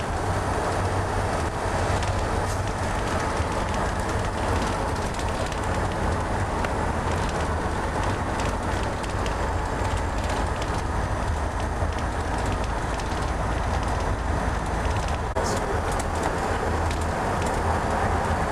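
Steady low engine and road rumble inside the cabin of a moving shuttle bus, with a few light clicks and rattles.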